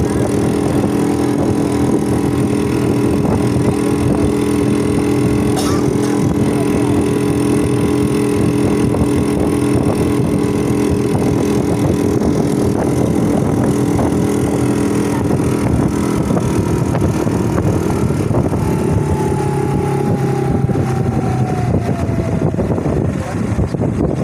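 Engine of a wooden river longboat running steadily under way, with a faint falling whine in the last few seconds.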